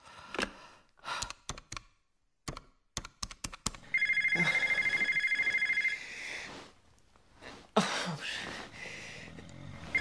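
A run of light clicks and knocks, then a telephone bell ringing: one ring of about two seconds, and a second ring starting near the end.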